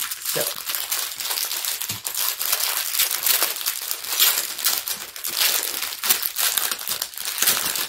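Clear plastic bags of diamond-painting drills crinkling as a bundle of them is handled: a continuous dense crackle.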